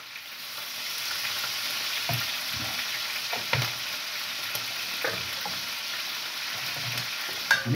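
Chopped tomatoes and meat sizzling steadily in a stainless steel frying pan over a gas burner, with a few light knocks.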